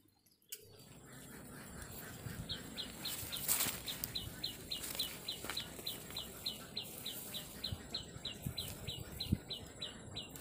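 A bird calling a long, regular run of short, high chirps, each sliding downward, about four a second, starting a couple of seconds in. A few soft low thumps sound near the end.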